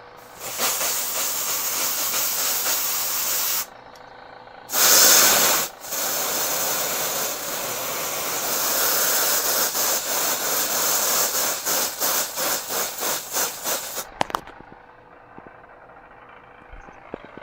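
Aerosol freeze spray hissing in bursts to cool a bare CPU: a spray of a few seconds, a short louder blast about five seconds in, then a long spray that breaks into a quick run of short spurts near the end.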